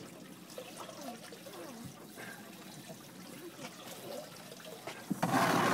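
Water sloshing and trickling against a fishing boat's hull, with a short, louder rush of noise near the end.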